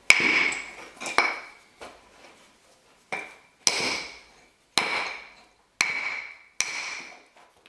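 Hammerstone striking the edge of a flat stone slab to knock off flakes: about eight sharp blows, roughly one a second with a pause about two seconds in. Each blow rings briefly on the same high note and dies away.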